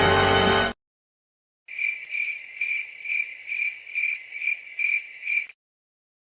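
Crickets chirping: a high, pulsing trill repeating about twice a second for about four seconds, then cut off abruptly, the stock 'awkward silence' cricket effect. A music clip stops sharply under a second in, before the chirping begins.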